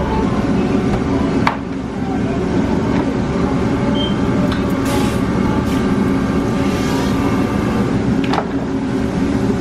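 Steady loud mechanical rumble of kitchen background noise, with a sharp knock about a second and a half in and another near the end.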